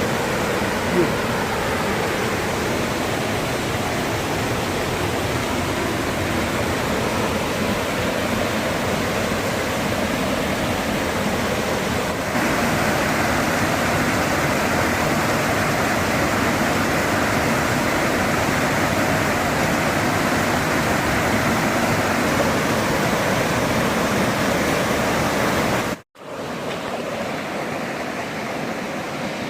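Steady rushing of a waterfall. About three seconds before the end it cuts out sharply, then returns a little quieter.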